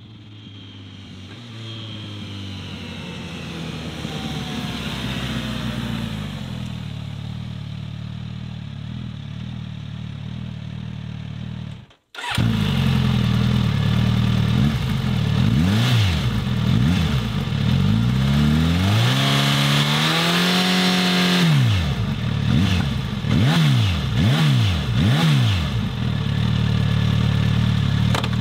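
Suzuki GSX-S1000's inline-four engine through its original stock exhaust. First the bike rides toward the listener, growing steadily louder. Then, standing still, it is revved: a few short blips, one longer rev, and about four quick blips in a row, dropping back to idle between them.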